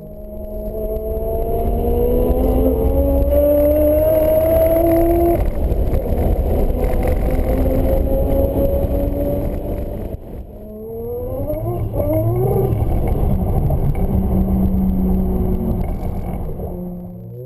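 Mazda Eunos Cosmo's 20B three-rotor turbocharged rotary engine pulling hard, its pitch climbing steadily. The engine note dips briefly about ten seconds in and again near the end, then climbs again, as it runs up through the revs repeatedly.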